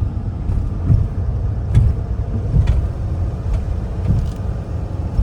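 Vehicle moving slowly, a steady low rumble of engine and tyres with a few light knocks scattered through it.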